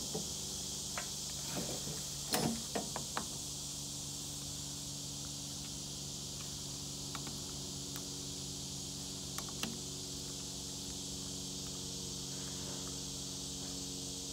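Wrench clinking and scraping on a battery's terminal clamp: a cluster of sharp metal taps in the first few seconds and a few more later, about two-thirds of the way in. Underneath, a steady chorus of insects and a low steady hum.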